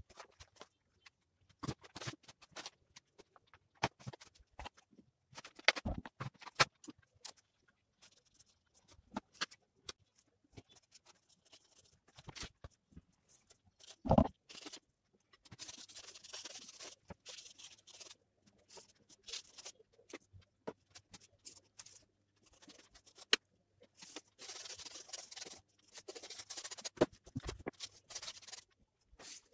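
A paintbrush scratching and swishing across a stretched canvas in strokes, with scattered small taps and knocks and one louder thump about halfway through.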